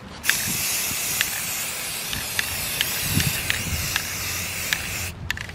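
Aerosol can of spray primer spraying a plastic water bottle: one long steady hiss that starts just after the beginning and cuts off about five seconds in, with a few light clicks over it.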